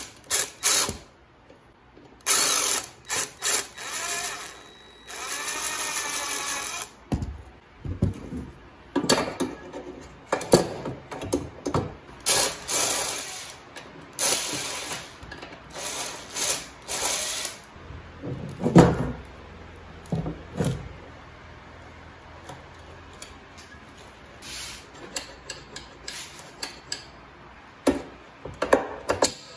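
Cordless impact driver run in several short bursts, one held for a couple of seconds, then sharp metal clanks and knocks as the planer's sheet-metal extension tables are handled and fitted, with one heavy thump about two-thirds of the way through.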